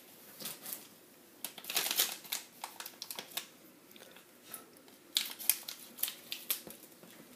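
Small foil-and-plastic powder packet from a toy food-kit crinkling as it is handled, in several short rustly bursts with a cluster about two seconds in and another about five seconds in.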